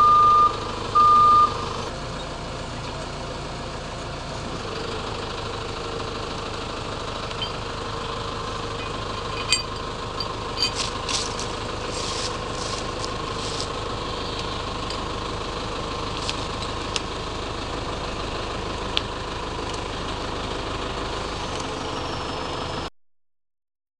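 Telehandler's diesel engine running steadily, with two reversing beeps at the start. A cluster of sharp clicks comes about ten to fourteen seconds in, and the sound cuts off suddenly just before the end.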